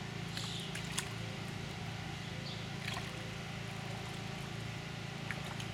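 Shallow water in an inflatable paddling pool sloshing and lightly splashing as a toddler moves through it, with a few small sharp ticks and a steady low hum underneath.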